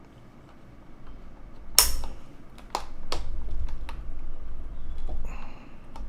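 Plastic keycaps being worked on a computer keyboard: a loud sharp click just under two seconds in, then three more clicks over the next two seconds, over a low handling rumble.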